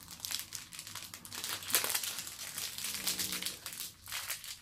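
Clear plastic packaging sleeve crinkling and crackling as it is pulled open and off a makeup foundation brush. A brief low hum-like tone sounds about three seconds in.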